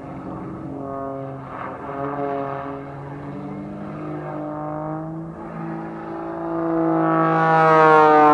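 Pitts Special Super Stinker aerobatic biplane's piston engine and propeller droning overhead, sliding up and down in pitch through its manoeuvres. It swells to its loudest and highest in the last couple of seconds.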